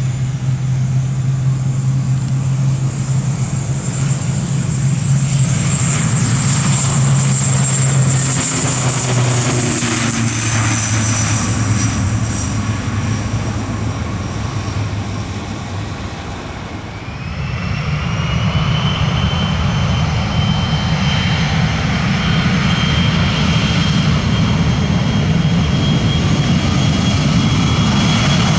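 ATR 42-600 turboprop on its takeoff run, its propellers giving a loud, steady low drone. About two-thirds of the way in this gives way to an Embraer 170's turbofan engines at takeoff power: a high whine rises and then holds over a deep rumble.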